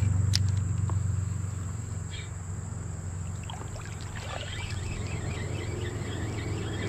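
Creek water running in a steady low rush, under a continuous high-pitched insect buzz, with faint scattered chirps in the second half.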